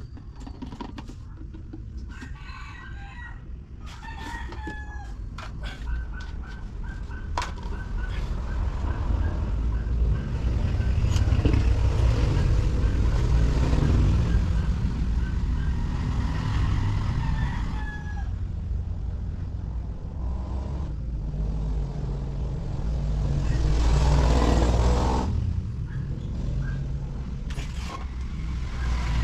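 Roosters crowing over a steady low rumble.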